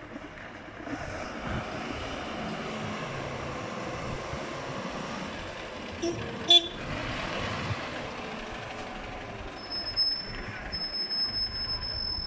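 Mercedes-Benz refuse truck's diesel engine running as it drives slowly up and past. A brief horn toot comes about halfway through, and a thin, high, steady whine sounds in the last couple of seconds.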